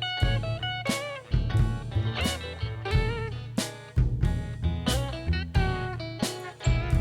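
Background music: a guitar-led instrumental with bass and a steady drum beat.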